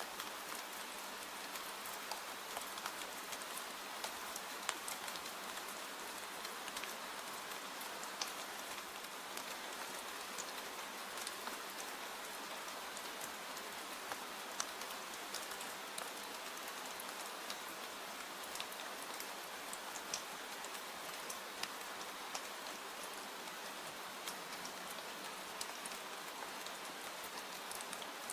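Steady rain, an even hiss scattered with many small sharp ticks.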